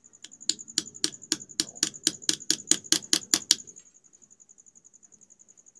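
Quick light hammer taps, about four a second for some three seconds, metal on metal, setting the pin of a sewing machine bobbin winder into its crank just tight enough that it turns freely without play. A cricket chirps steadily throughout.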